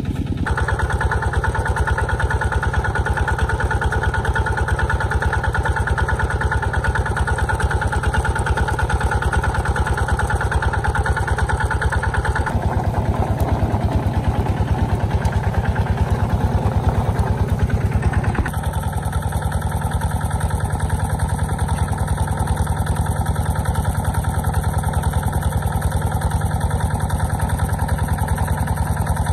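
Small engine of a water pump running steadily to drain a fish pond, with an even rapid beat; its tone shifts slightly about twelve and eighteen seconds in.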